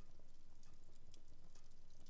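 Wood fire burning in a fireplace, crackling with scattered small pops and snaps over a low rumble.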